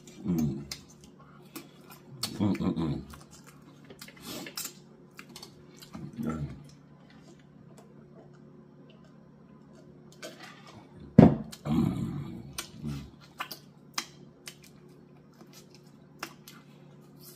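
Close-miked eating: wet lip smacking and chewing clicks, with several short low hums and grunts of enjoyment. A sharp knock about eleven seconds in is the loudest sound.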